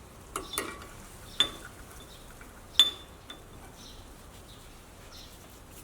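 A few sharp metallic clinks, the loudest with a short ring about three seconds in, from the steel spring, adjuster and parking brake shoes knocking together as the bottom spring and adjuster are fitted.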